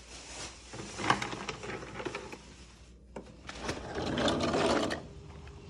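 Sliding glass patio door being opened: a couple of sharp clicks from the latch and handle, then a rumbling scrape as the door rolls along its track between about three and a half and five seconds in.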